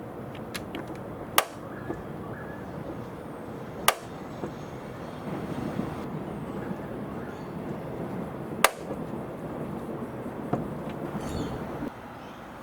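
Peugeot 308 SW front door check strap clicking as the door is opened: three sharp, loud clicks a few seconds apart, each followed by a fainter one, over a steady background hum. The click is the sign of a worn door check strap.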